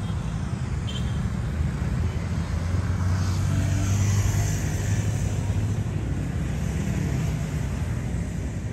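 Road traffic going by: a steady low engine hum with a vehicle passing, loudest about four seconds in.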